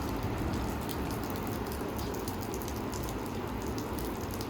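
Steady, even hiss-like background noise with a low hum underneath.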